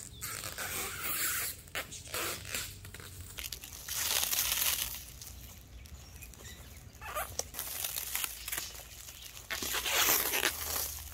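Clear plastic stretch wrap being pulled off its roll and wound around a tree trunk and a wooden plank. The film rustles and crackles as it stretches, in uneven bursts that are loudest about four seconds in and again near the end.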